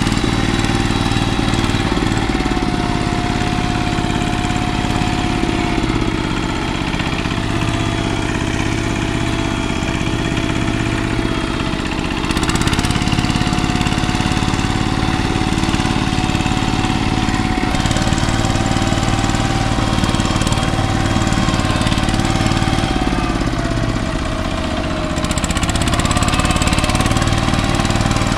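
Walk-behind two-wheel tractor's single-cylinder diesel engine running steadily while the tractor drives along, with a clattering beat and a faint whine that wavers slightly in pitch.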